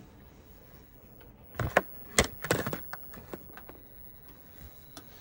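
A quick cluster of sharp clicks and knocks, four or five of them, in the middle, over quiet room tone.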